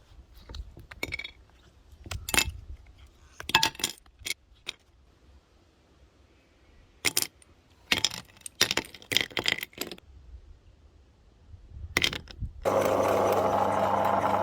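Hard candies clinking and clattering against hard surfaces in several short bursts of sharp clicks. Near the end an electric meat grinder's motor switches on abruptly and runs with a steady hum.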